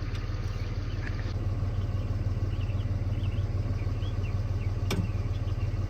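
A vehicle engine idling steadily, running to charge a semi truck's dead batteries through jumper cables. A single sharp click about five seconds in.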